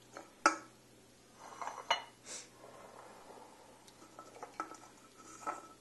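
Scattered light knocks and clinks of aluminium cans and glass bowls being picked up and set down on a stone countertop, with a few short ringing clinks near the end.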